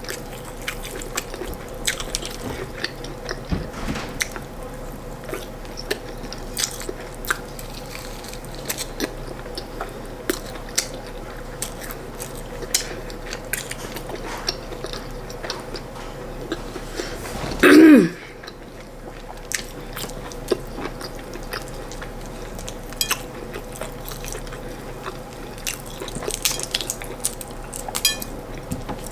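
Close-up eating sounds of corn fufu and stewed chicken being chewed: wet chewing and small mouth clicks throughout. About two-thirds of the way through there is one brief, loud throat sound that falls in pitch.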